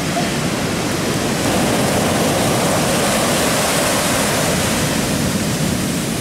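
Ocean surf breaking and foaming up the sand in a steady rush of noise that swells slightly about a second and a half in.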